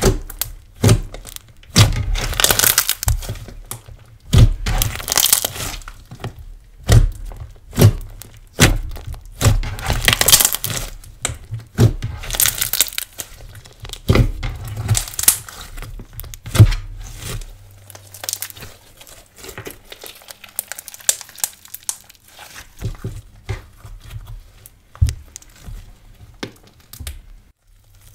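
Hands kneading, pressing and stretching a soft pearl slime: wet squishes and sharp crackling pops of air pressed out of it. The squishing grows softer about two-thirds of the way through.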